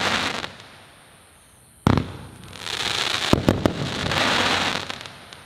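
A 20 mm fireworks battery (Argento Sakkara) firing its silver crackler shots. A crackle dies away, then there is a sharp bang just under two seconds in, followed by dense crackling of bursting crackler stars with a few louder pops, fading near the end.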